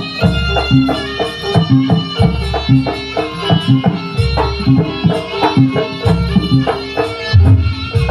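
Live jaranan (kuda lumping) ensemble music: quick hand-drum strokes and a held, reedy melody line over a deep gong-like stroke about every two seconds.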